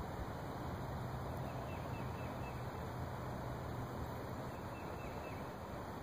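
Steady outdoor background noise with a low hum, and faint, short high calls in a quick run about a second and a half in.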